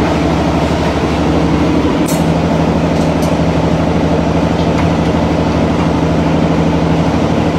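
Steady, loud machine hum at a constant low pitch. A few light metal clinks come about two and three seconds in, from steel hooks and a wire rack being lifted out of a clay tandoor-style pit oven.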